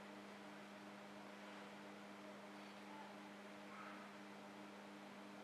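Near silence: room tone with a steady low electrical hum.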